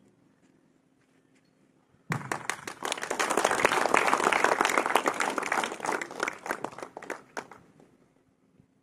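A group of people applauding, starting suddenly about two seconds in, swelling, then dying away over the last few seconds. The applause greets the national flag unfurling at the top of the pole at a flag hoisting.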